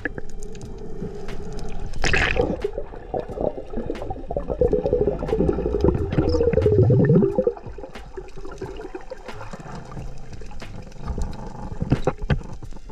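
Water bubbling and gurgling, loudest from about two to seven and a half seconds in, with scattered sharp clicks throughout.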